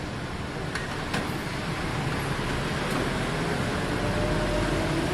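Steady mechanical noise, slowly getting a little louder, with a few light clicks about a second in and again near three seconds.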